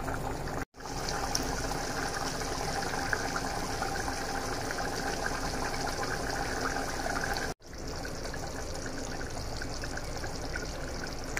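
Beef curry bubbling in a nonstick frying pan as it simmers down in the fresh meat's own released juices: a steady wet bubbling full of small pops. The sound cuts out for a moment twice.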